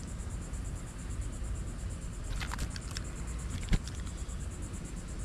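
Steady insect chorus, a fast even trill high up, over a low outdoor rumble. A few soft clicks come past the middle of the clip, then one sharp knock.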